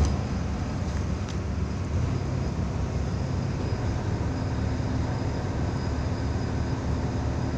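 Tugboat's diesel engine running steadily, an even low rumble.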